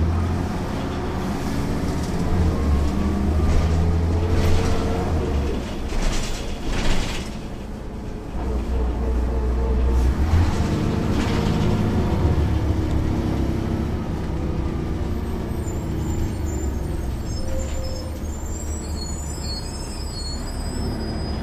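Cummins C8.3 diesel engine of a 1995 Nova Bus RTS transit bus, heard from the back seats, pulling away under power. Its pitch climbs over the first few seconds, drops, and climbs again about ten seconds in before settling. Short hisses of air come in along the way.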